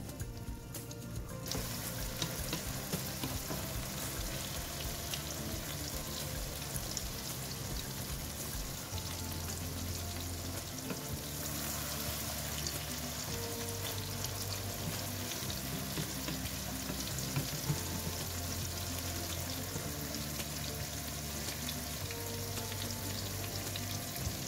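Beaten egg and tomato sizzling in hot oil in a non-stick wok, the hiss swelling about a second and a half in, with a wooden spatula scraping and stirring through it. Background music plays under it.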